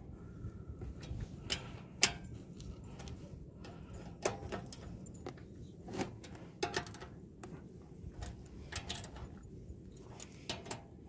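Socket wrench clicking and clinking against bolt heads as the bolts of an aluminium engine crankcase cover are tightened one by one: short, sharp clicks at irregular intervals, some in quick little clusters.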